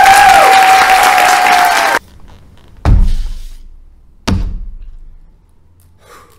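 Audience applauding with a long held whoop over it, cut off sharply about two seconds in. Then two heavy foot stomps on the stage floor, about a second and a half apart, each dying away in the hall.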